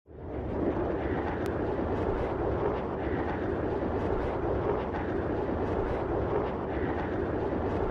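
A steady rushing rumble that starts abruptly and holds level throughout, with faint ticks above it.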